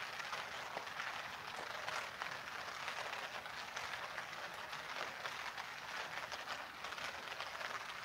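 Steady rain falling on a clear plastic umbrella held overhead: a dense, even hiss with many small ticks of individual drops.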